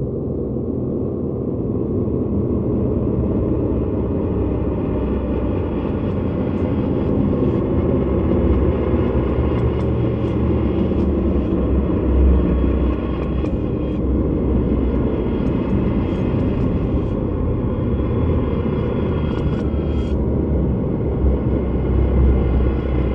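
Ambient drone music performed with the Lyra: a dense, low rumbling drone with layered sustained tones above it. From about six seconds in, faint, scattered high ticks sound over it.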